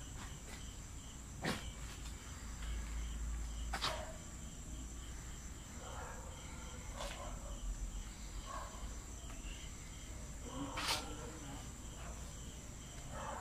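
Crickets trilling in a steady, even high note, with a fainter row of quick regular chirps under it. A few sharp clicks or knocks break in, four times.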